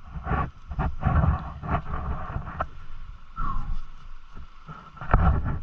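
Dirt bike engine revving in uneven surges, the throttle blipped on and off.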